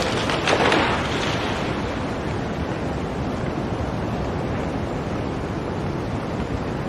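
Blizzard wind blowing steadily, with a stronger gust about half a second in.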